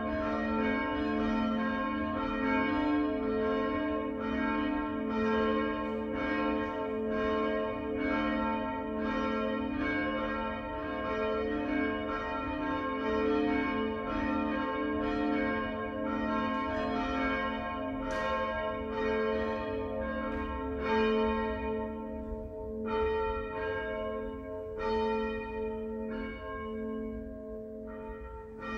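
Several church bells pealing together, a quick overlapping run of strokes over their long ringing hum. Over the last several seconds the strokes thin out as the peal slows and dies down.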